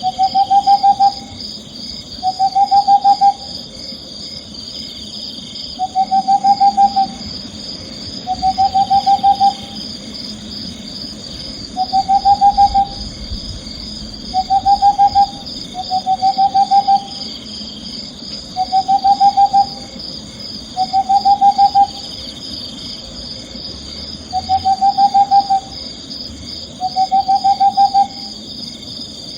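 Owl calling with short trilled hoots, each a quick run of pulses rising slightly in pitch, repeated every two to three seconds over a steady high-pitched chirring background.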